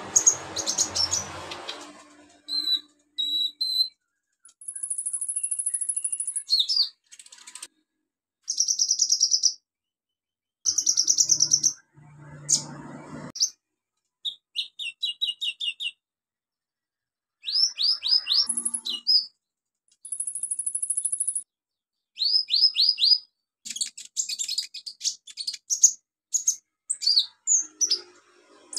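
Caged male kolibri ninja sunbird singing its varied, high-pitched song in bursts with short gaps: high buzzy trills, runs of quick repeated notes and rapid downward-sweeping notes.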